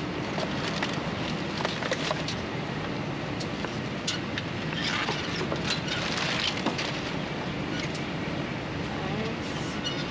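Plastic trash bags and rubbish rustling and crackling as a grabber tool digs through a dumpster, with a thicker patch of rustling around the middle. A steady low hum runs underneath.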